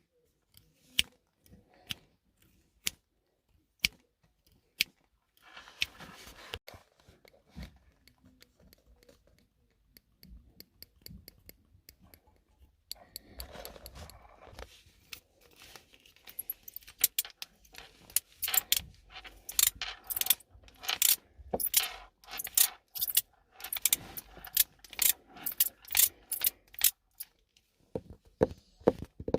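Single sharp clicks or taps about once a second, then a soft clatter, then from about halfway through a dense, irregular run of bright clicking and jingling that grows louder toward the end.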